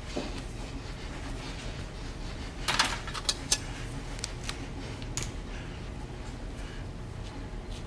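A few sharp clicks and light clatter of small hard metal or glass objects being handled, closely spaced about three seconds in and single ones after that, over a low steady hum.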